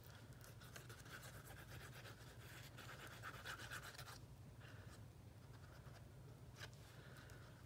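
Faint scratching of a liquid glue bottle's applicator tip drawn in zigzags across cardstock, with a short pause about four seconds in.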